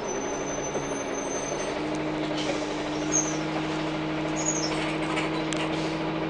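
2003 Orion VII CNG bus's Cummins C Gas Plus six-cylinder engine and drivetrain running, heard from inside the bus as a steady drone. Its pitch steps up slightly about two seconds in, and two short high squeaks come later.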